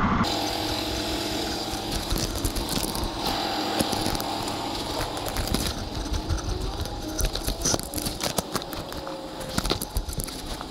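A tractor-trailer's diesel engine idling steadily while it warms up, with many short clicks and knocks scattered through it.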